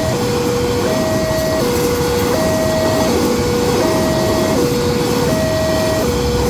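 Level-crossing warning alarm sounding a steady two-tone high-low signal, switching pitch about every three-quarters of a second, over a loud steady rumble.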